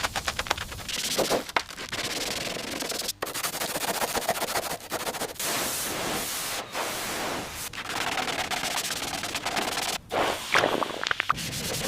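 Workshop power-tool noise in a run of short edited cuts: rapid rattling impacts and grinding or sanding, changing abruptly every second or two.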